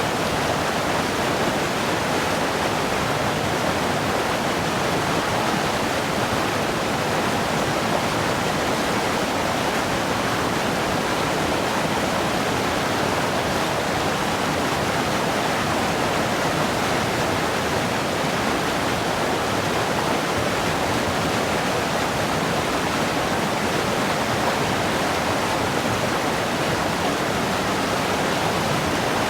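River water rushing, a steady, even noise with no changes.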